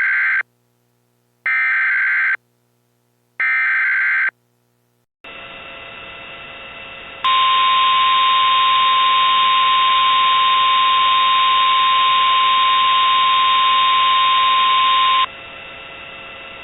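Emergency Alert System header and attention signal. Three identical SAME data bursts give harsh warbling electronic screeches, each about a second long and about a second apart. A steady hiss comes in, and a couple of seconds later the loud steady two-tone EAS attention tone sounds for about eight seconds, then stops, leaving the hiss.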